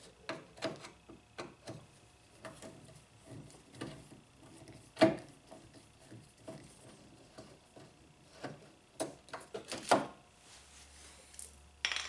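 Screwdriver working the screws of a door lock actuator inside a car door: scattered small clicks, taps and scrapes, with a sharper knock about five seconds in and two more near the end.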